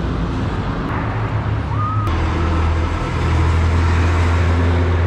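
A motor vehicle engine running close by, a low steady rumble over street traffic noise, growing louder about three seconds in.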